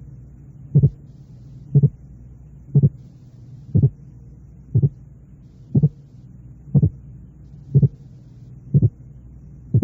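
Simulated heart sounds for auscultation training: pairs of short thuds, the two sounds of each pair split by 8 hundredths of a second, the widest split in the series, still heard as two separate sounds. The pairs repeat about once a second over a steady low hum.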